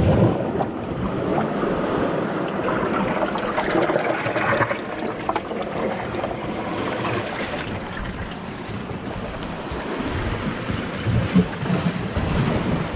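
Rough surf breaking against shore rocks and washing over them in a continuous rushing wash that swells and eases.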